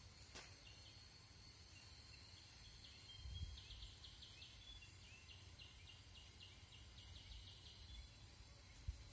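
Faint insect chorus: a steady high-pitched drone, with a run of short chirps, about four a second, from shortly after the start until near the end.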